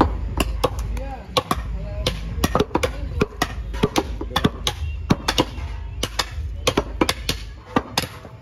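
Butcher's heavy cleaver chopping beef on a round wooden chopping block: a quick, uneven run of sharp thwacks, about three a second.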